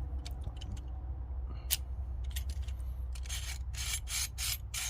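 Icon 10-inch pliers wrench being worked by hand: a few light metal clicks, one sharper click, then short rasping metal strokes as the adjustable jaw is slid back and forth, coming faster towards the end.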